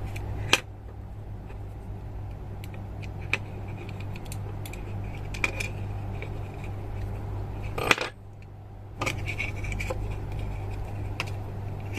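Light clicks, taps and scrapes of the opened air pressure switch's small plastic housing and parts being handled, with sharper clicks about half a second in and just before the eighth second. A steady low hum runs underneath and drops out briefly after the second sharp click.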